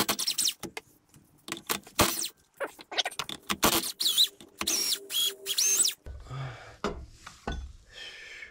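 Metal clanks, knocks and scraping from tools and drivetrain parts being handled under a car at the bell housing, with a few short high squeaks between about four and six seconds in. About six seconds in it turns quieter, to a low steady background noise.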